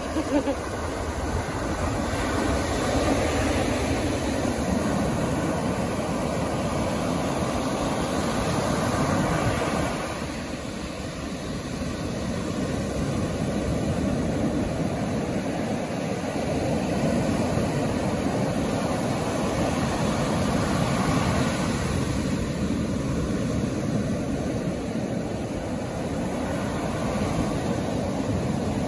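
Ocean surf breaking and washing up a sandy beach: a steady rushing that swells and eases as the waves come in, dipping briefly about ten seconds in.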